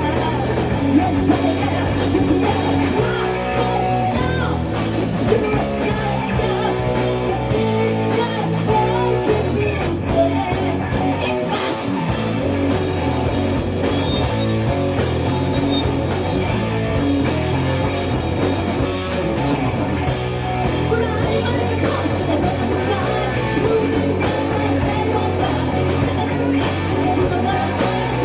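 Rock band playing a rock song, with electric guitar and drums.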